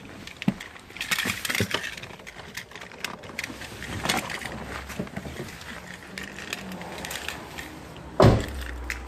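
Clicks, rustling and short knocks of a car's doors and hood being worked, with one loud thump about eight seconds in.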